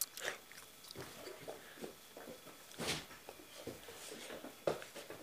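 A child gulping and swallowing water from a large plastic bottle, with scattered soft mouth and bottle noises and a sharper click about three seconds in.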